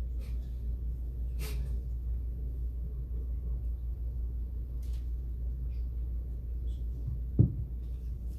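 Steady low electrical hum in a quiet pause, with a few faint clicks and one short thump about seven and a half seconds in.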